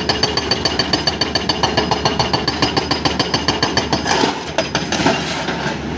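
Hydraulic rock breaker on a Cat 320D3 excavator hammering hard black rock in rapid, even blows over the excavator's diesel engine running. The hammering eases off about four seconds in.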